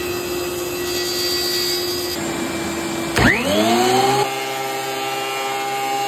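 A power saw running steadily. About three seconds in, a click and a Ridgid thickness planer's motor starting up, its whine rising for about a second before it settles and runs steadily at speed.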